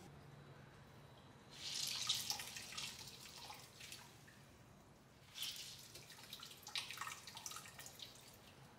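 Water squeezed by hand out of a ball of blanched spinach, trickling and dripping into a pot of blanching liquid below. It comes in two spells of splashing, the first about a second and a half in and the second near five and a half seconds.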